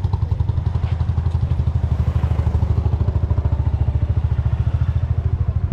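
A small motorcycle engine running steadily close to the microphone, a fast, even low putter.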